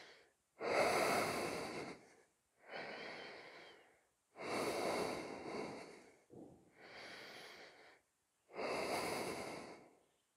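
A person breathing deeply and audibly while holding a strenuous yoga pose. Slow breaths in and out come as three louder breaths about four seconds apart, with quieter ones between them.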